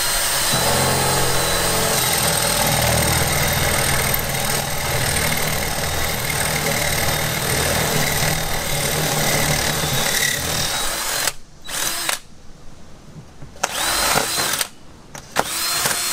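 Cordless drill boring a 1-inch hole through exterior house siding. It runs steadily for about eleven seconds, then stops and gives three short bursts, the motor whine rising at the start of each.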